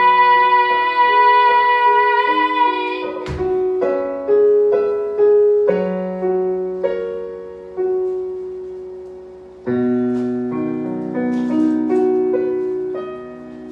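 A long held sung note fades out about three seconds in. Piano then plays a slow passage of single notes and chords, each struck and left to die away.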